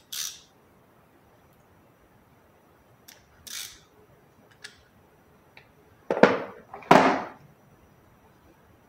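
Metal sockets and ratchet handles of a socket set clinking as they are handled and fitted together, a few light clicks, then two louder clunks about six and seven seconds in as tools are set back into the plastic tray.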